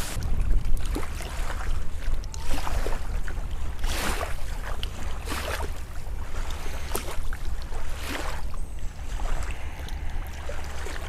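Wind rumbling on the microphone over water lapping in small waves, with a soft splash every second or two.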